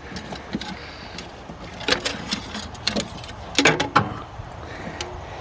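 A handful of sharp metallic clicks and knocks, bunched between about two and four seconds in, as the old dipstick tube is worked loose from the engine block, over a low steady hiss.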